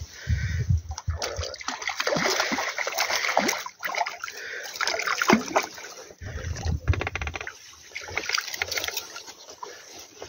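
Hooked carp splashing and thrashing at the water's surface as it is played in to the bank, in irregular splashes.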